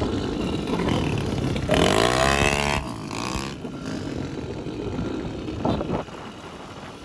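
Honda Beat scooter's bored-out 130 cc carburetted engine running through a newly made racing exhaust on a test ride. Its exhaust note rises sharply in pitch under acceleration about two seconds in, loudest there, then falls back to a steadier run against constant road noise.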